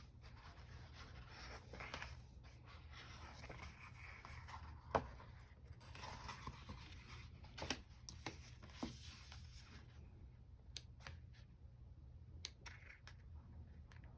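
Soft rustling of paper and sticker sheets being handled, with a few sharp small taps, the loudest about five seconds in; it grows quieter for the last few seconds, leaving only scattered faint clicks.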